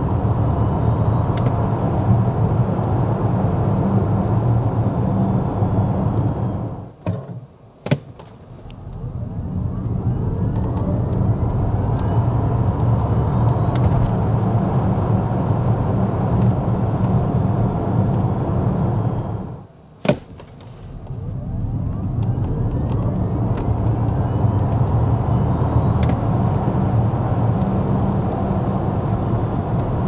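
Cabin noise of a Hongqi E-HS9 electric SUV on hard acceleration and braking runs: a steady rumble of tyre and wind noise with a faint rising whine as speed builds. The noise drops away briefly twice, each time with a sharp click, then builds again.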